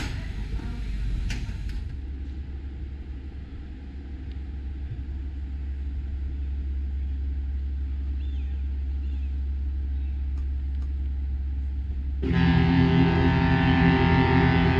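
Steady low rumble with a few sharp clicks in the first couple of seconds. About twelve seconds in, background music with plucked strings comes in loud over it.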